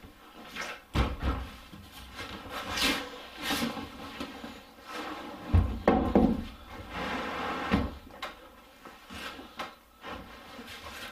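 Large timber tongue-and-groove shed wall panels being handled and laid on a wooden workbench: a series of wooden knocks and heavy thumps, the biggest about a second in, again about halfway, and once more a couple of seconds later, with rubbing and scraping as a panel is shifted into place.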